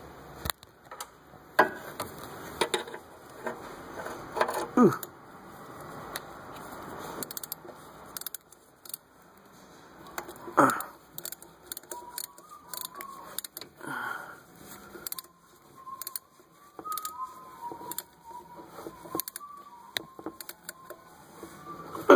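Ratchet wrench and socket tightening a transfer case check plug: irregular ratchet clicks with metal clinks and knocks from the tool.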